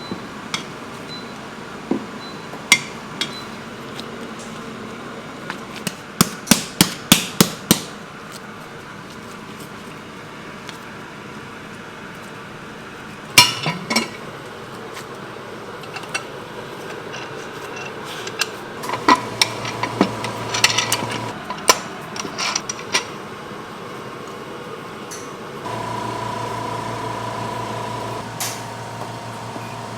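Kitchen work in a bakery: sharp knocks and clinks of metal utensils and equipment, including a quick run of about eight knocks a little after six seconds in and a single hard knock near the middle. Near the end a steady machine hum starts.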